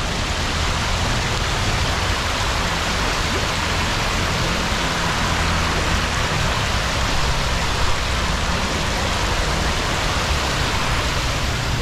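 Many jets of a decorative fountain splashing into their pool: a steady rushing, splashing of water.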